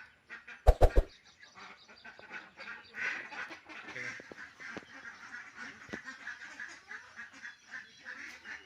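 Domestic ducks quacking steadily, many short overlapping calls, as the flock files into its house for the night. A few loud knocks about a second in.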